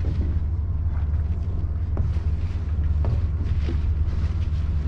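Rescue boat's engine idling alongside, a steady low rumble, with a few light knocks over it.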